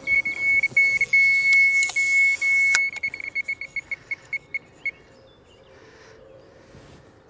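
Electronic carp bite alarm signalling a run: a high tone sounding almost without a break, then breaking into separate beeps that slow and stop about five seconds in. A hissing whir runs with the tone at first and ends with a sharp click just before the three-second mark.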